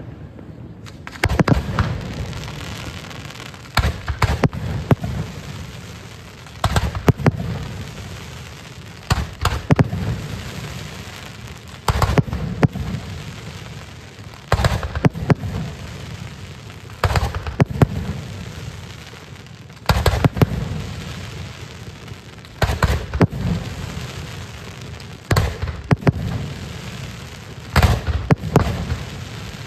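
Fireworks display: a steady run of clusters of sharp bangs, a few bangs in each, coming about every two and a half to three seconds. Each cluster is followed by a low rolling echo that fades before the next.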